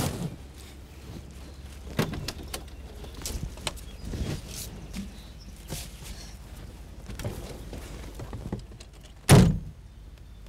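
A vintage Mercedes-Benz car door being swung shut, closing with one heavy thump about nine seconds in. Several lighter knocks and clicks come before it.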